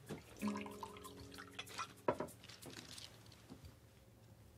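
Liquid poured from a jug into a glass, with a short steady hum near the start and a sharp knock about two seconds in.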